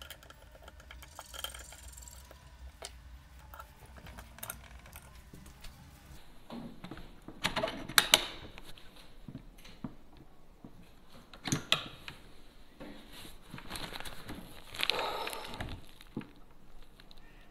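Handling noise from loading a PCP air rifle with a fishing arrow and fitting its line reel under the barrel: scattered knocks and clicks of plastic and metal, the sharpest about halfway through, then a rustling scrape near the end.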